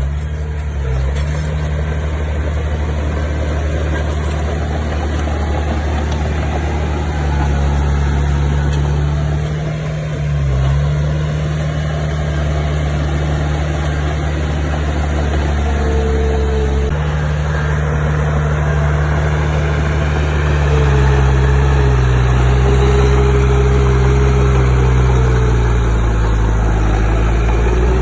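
Heavy diesel engine of earthmoving machinery running steadily, its pitch and load shifting a few times, with a heavier pull beginning about three-quarters of the way through.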